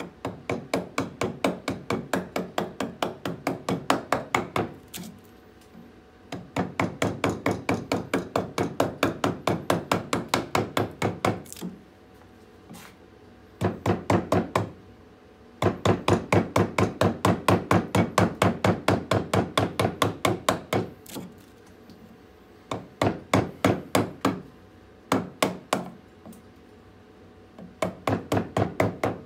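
A mallet striking the handle of a carving gouge, driving it into a birch log to hollow out a bowl. The blows come in quick runs of about four a second, each run lasting a few seconds, with short pauses between.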